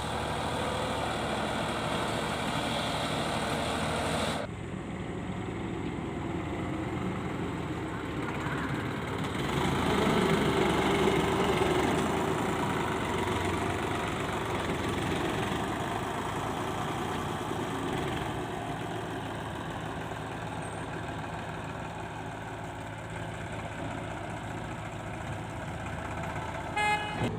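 Heavy diesel machinery running: backhoe loader and tractor engines idling and working. The sound changes abruptly about four seconds in and gets louder for a couple of seconds around ten seconds in.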